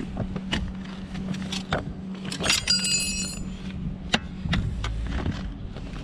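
Metal tools clicking and clinking as a brake caliper piston compressor is handled and fitted over the caliper, with one ringing metallic clink about two and a half seconds in and a sharp click about a second later. A low steady hum runs underneath.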